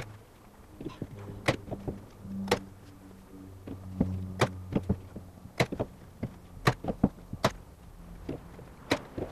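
Handheld staple gun firing staples through canvas into a wooden stretcher bar: a series of sharp snaps, one about every second, as the canvas is stapled down along the frame.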